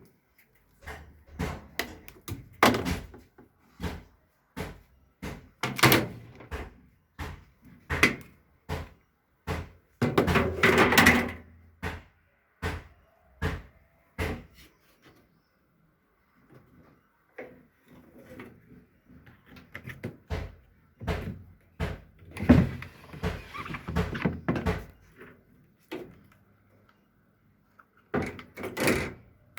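Irregular knocks, clunks and clatter of a tumble dryer's door and parts being opened, shut and handled during cleaning. There is a denser rattling stretch about ten seconds in and another past the twenty-second mark, with a short lull between.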